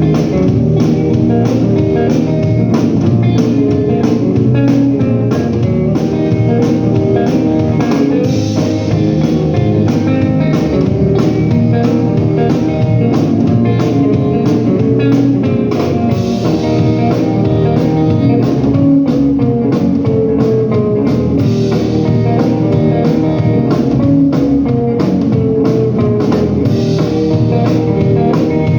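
A blues band playing an instrumental passage, with guitar over a drum kit keeping a steady beat.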